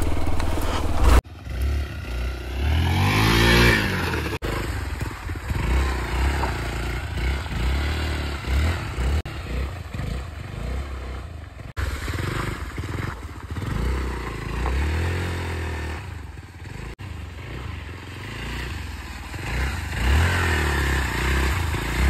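Royal Enfield Himalayan 450 single-cylinder motorcycle being ridden off-road over a rough track. The engine revs rise and fall again and again, with several abrupt jumps in the sound.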